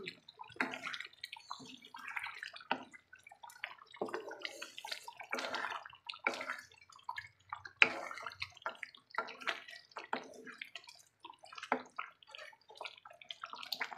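A pot of goat caldereta stew bubbling and sloshing as it simmers, with irregular wet pops scattered through. The potatoes in it are still hard and cooking.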